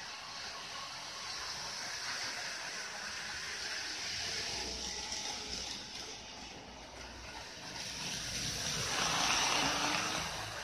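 Model electric train running on its track, a steady whirring rattle of motor and wheels that grows louder about nine seconds in as it comes close.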